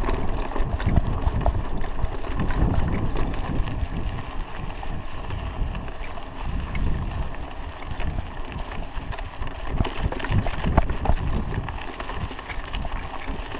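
Wind buffeting the microphone while a Raleigh Ascent mountain bike rolls over a rough dirt road, its tyres crunching and its frame and parts rattling lightly.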